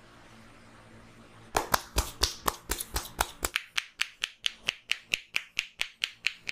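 Barber's hands striking the head in a rapid percussive massage: a run of sharp slaps, about four or five a second, starting about a second and a half in and loudest at the start.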